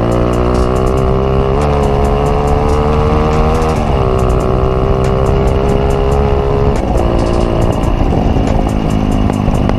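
Motorstar Z200S motorcycle engine running under way, its pitch shifting in steps a few times, about a second and a half, four and seven seconds in, then easing off near the end.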